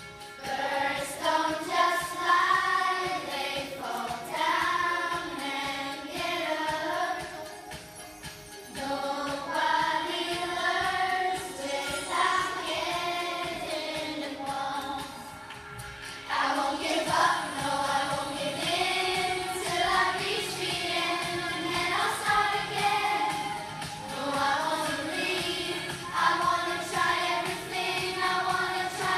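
A group of school children singing a song together on stage, phrase after phrase, with short pauses about eight seconds in and again about sixteen seconds in.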